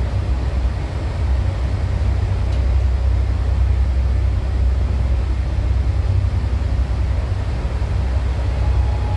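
Steady low rumble and rushing noise of a passenger train running at speed, heard from inside the carriage at the window.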